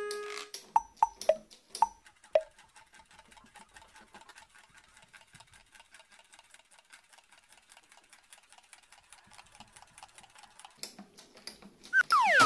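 A pump-dispenser bottle pressed over and over, squirting water in a fast run of faint clicks and spritzes, with a few sharper clicks in the first couple of seconds. Near the end comes a short, loud falling whistle-like tone.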